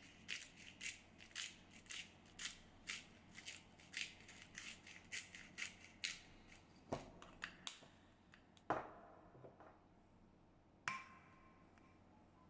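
Food being cut in quick, evenly spaced strokes, about two or three a second, for roughly six seconds. Then come a few separate knocks of kitchen utensils, and the last one leaves a brief ringing tone.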